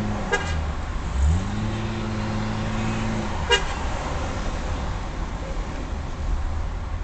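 Car horn giving short toots over city traffic: a quick double beep about half a second in and a single beep about three and a half seconds in. Under them a steady engine hum rises in pitch about a second in and fades out about three seconds in.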